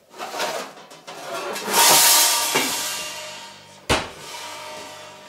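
Enamelled cast iron pot being taken out of a range cooker's oven: a loud rush of noise about two seconds in that fades, then a single sharp clank near four seconds as the pot is set down on the range top.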